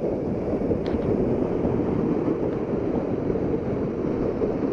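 Waterfall pouring down a rock face close by: a steady, even rush of falling water and spray.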